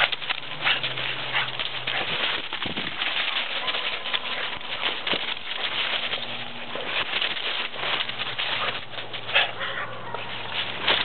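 Dry fallen leaves rustling and crackling as hounds run and nose through them, a dense run of irregular crunches with a few louder ones.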